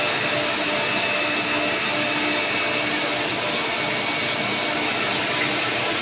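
Gun-barrel deep-hole drilling machine running, a steady whirring machine noise with faint steady tones through it.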